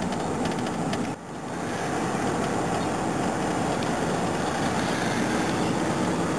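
Steady engine and road noise of a moving patrol car, heard from inside the cabin, with a short dip in level about a second in.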